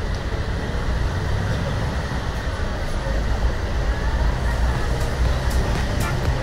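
Busy city street traffic: a steady low rumble of buses and cars with the blurred hum of a crowd. About five seconds in, light ticks begin at about two a second.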